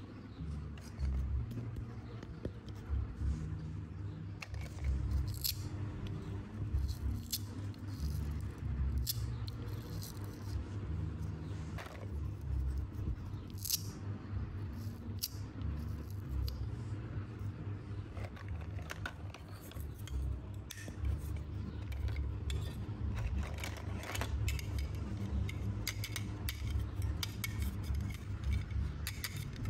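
Hard plastic toy food and kitchen pieces clicking and clattering as they are picked up, handled and knocked together, with a low rumble underneath.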